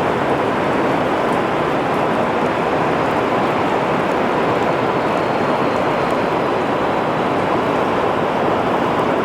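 Rain pouring steadily: a dense, even hiss with no thunder claps.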